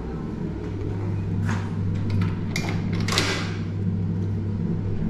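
Vehicle engine running with a steady low hum, with three short hissing or rustling noises about one and a half, two and a half and three seconds in.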